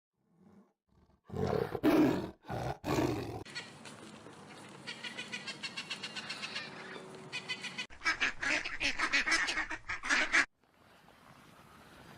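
Animal calls in short clips cut one after another: a few loud calls in the first seconds, then two runs of quick repeated calls sounding like ducks quacking, followed by quieter outdoor background.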